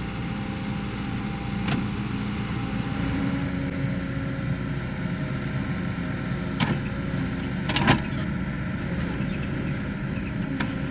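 Kobelco SK75 excavator's diesel engine running steadily, with a few short sharp knocks from the machine at work, the loudest about eight seconds in.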